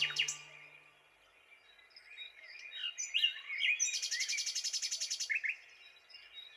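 The song's last note fades out, then faint bird chirps and twitters, with a rapid pulsing trill for about a second and a half and two short chirps after it.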